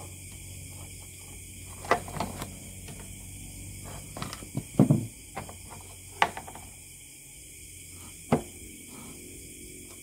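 Irregular clicks and knocks of an opened gaming mouse and small hand tools being handled and set down on a wooden workbench, busiest and loudest in a cluster around the middle, with a last single knock near the end.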